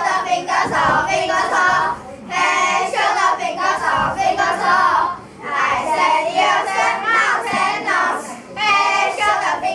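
A group of children singing together in unison without accompaniment, in phrases of two or three seconds with short breaks between them.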